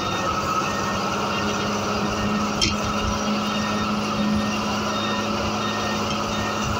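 Steady engine and road noise heard inside the cab of a large motor vehicle driving at speed, with a steady low hum and one brief sharp click about two and a half seconds in.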